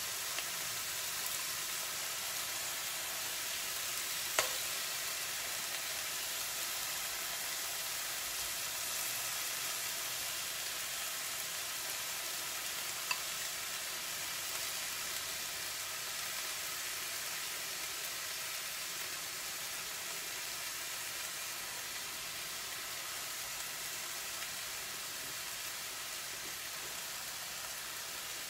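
Chicken breasts sizzling steadily in avocado oil in a cast iron skillet, a soft even hiss that eases slightly toward the end. Two short clicks come about four seconds in and again about halfway through.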